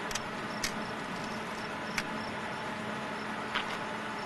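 Four sharp clicks at uneven intervals, the first a quick double, over a steady hiss and a faint low hum: a film still camera's shutter being fired.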